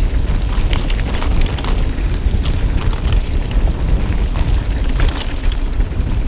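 Heavy wind rumble buffeting a GoPro's microphone while mountain biking, with frequent sharp clicks and rattles from the bike over rocky dirt trail.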